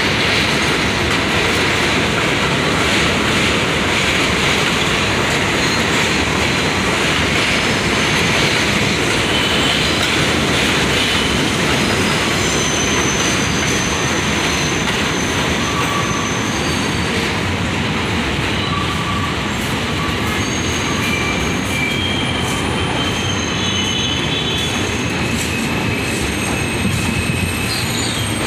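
A train running on the rails with a loud, steady rumble. Thin, high-pitched wheel squeals come and go through the second half.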